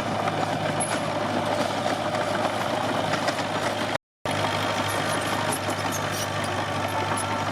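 Komatsu D21P bulldozer's diesel engine running steadily, with the sound cutting out completely for a moment about four seconds in.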